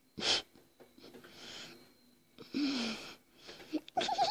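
A young girl stifling laughter close to the microphone: a sharp puff of breath, then breathy wheezing giggles, and a short warbling high-pitched laugh near the end.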